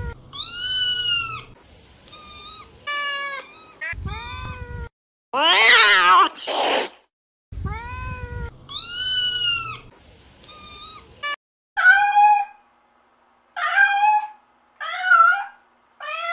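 Domestic cats meowing over and over: about a dozen high, arching meows, with one louder, rougher, drawn-out call about five seconds in. The meows from about twelve seconds on are lower and shorter, as from another cat.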